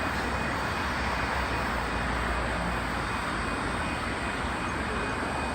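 Sydney Trains OSCAR (H-set) double-deck electric train passing through the platform: a steady, even running noise of the train going by.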